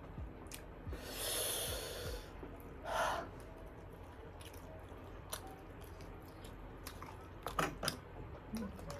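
A person hissing air through the mouth against chilli heat while eating: one long breath about a second in and a shorter one about three seconds in, with faint chewing and a brief vocal sound near the end.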